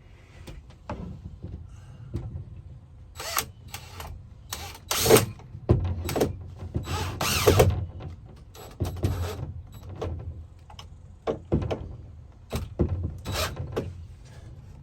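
Hands-on framing work inside a van: a string of separate knocks, clatters and short mechanical bursts from tools and lumber being handled and fastened, loudest about five seconds in and again around seven to eight seconds in.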